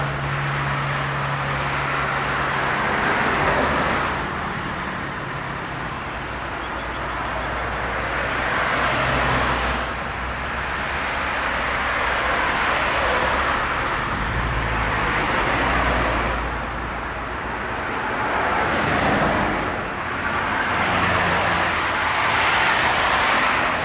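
Road traffic: cars passing one after another, their engine and tyre noise swelling and fading every few seconds over a steady low rumble.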